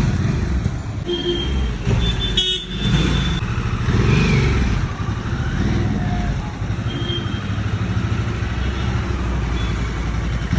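2022 Harley-Davidson Sportster S's Revolution Max 1250T V-twin running at idle, a steady, uneven low pulse.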